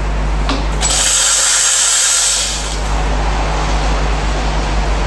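Ascaso Steel espresso machine's steam wand letting out a hissing blast of steam for about two seconds. It starts suddenly about a second in and then dies away, as steam is vented from the single boiler.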